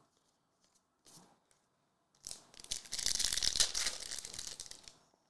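Hockey card pack wrapper being torn open: a rough tearing and crinkling that starts about two seconds in and lasts about three seconds.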